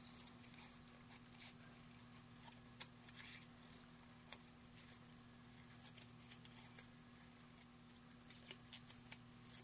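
Small scissors faintly snipping as they cut a spiral into a small circle of vellum: scattered quiet snips at irregular intervals over a low steady hum.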